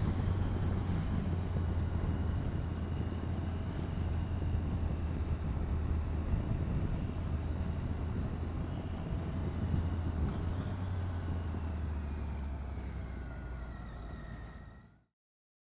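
Motorcycle engine running at a steady road speed, mixed with wind rushing over the helmet camera; the sound fades out near the end.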